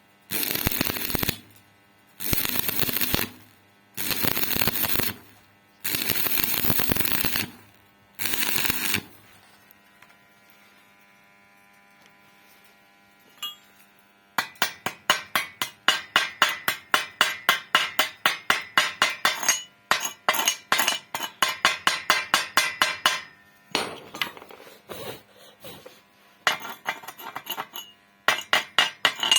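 Stick welding arc crackling in about five short bursts of a second or so each, the welder stopping and restarting while filling a gap in heavy steel channel. After a pause of several seconds, rapid sharp metallic tapping at about four to five strikes a second, a chipping hammer knocking slag off the weld, thinning out near the end.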